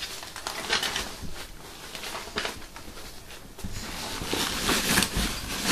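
Handling noise from hands rummaging through a nylon medical jump bag and its plastic-wrapped supplies: irregular rustling with light knocks and clicks. It gets busier and louder about two-thirds of the way in.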